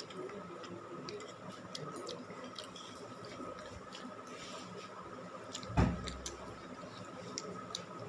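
Noodles being eaten with forks from steel plates: small clicks and scrapes of the forks on the plates and quiet chewing. A single thump comes about six seconds in.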